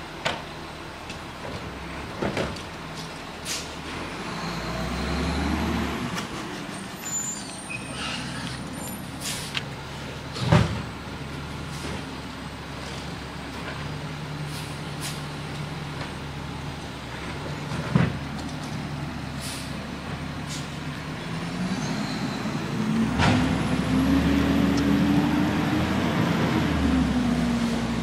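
Automated side-loader garbage truck running its diesel engine while its hydraulic arm empties yard-waste bins, with several sharp bangs of the bins being dumped and set down, the loudest about ten seconds in. Near the end the engine revs up and holds as the truck pulls ahead.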